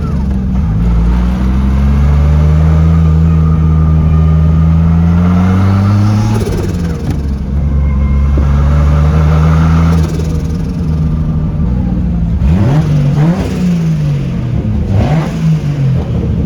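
Toyota 1JZ-GTE turbocharged inline-six pulling at low revs, kept under 2000 RPM, its pitch climbing slowly, falling away about six seconds in and again about ten seconds in as the throttle is lifted, then several quick rises and falls near the end. Brief rushing turbo flutter comes with the throttle lifts.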